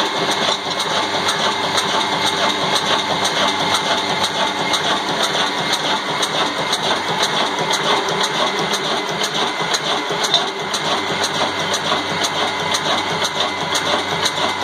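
Old stationary 'black' desi engine of the Ruston Hornsby kind, with a large flywheel, running steadily at an even beat.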